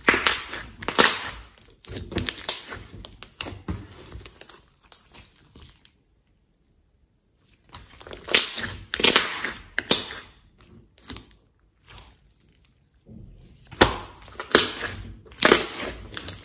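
A large batch of glossy slime being squeezed and kneaded by hand, giving wet squelching sounds in quick, irregular bursts. The sounds break off into silence for about two seconds midway, then start again.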